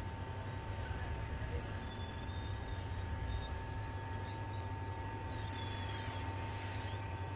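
Hot-air rework station blowing steadily, a low hum with a steady high whine, as it heats a phone's charging flex connector to solder it onto the motherboard.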